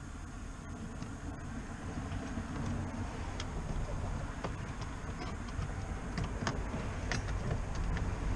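Scattered light clicks and taps of plastic dash trim and a switch panel being handled and pressed into place under the steering column, over a steady low rumble that slowly grows louder.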